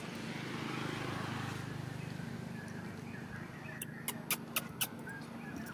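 A steady low motor-like hum, with a quick run of about five sharp clicks about four seconds in.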